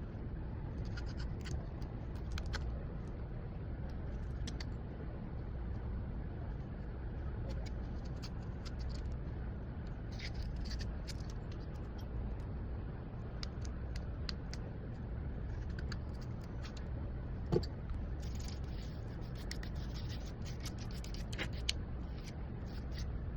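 Repair tools scratching and ticking against an iPhone 16 Pro Max during a back glass replacement. The sounds come in short scattered spells, with one sharper tick a little past the middle, over a steady low hum.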